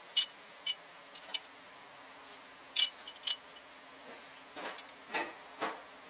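Sharp light clicks, five of them spread over the first three and a half seconds, then a few duller knocks and scrapes near the end, over a faint steady background.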